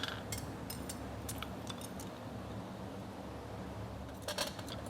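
Pause in hammering a steel horseshoe at the anvil: a few light metallic clinks as the shoe and tools are handled, over the steady hum of a cooling fan. A short run of hammer blows on the shoe starts again near the end.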